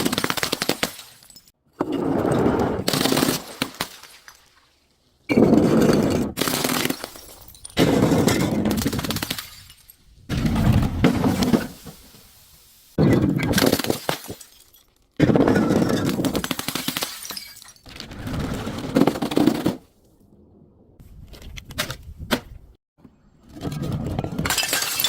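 Objects being crushed one after another: about nine separate bursts of crunching and cracking, each lasting one to four seconds, with short pauses between.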